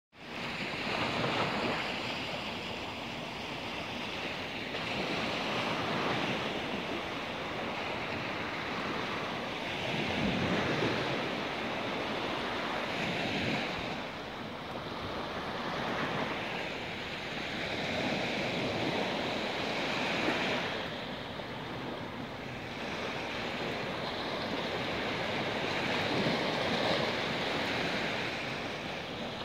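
A steady rushing outdoor noise of wind and water that swells and fades every few seconds.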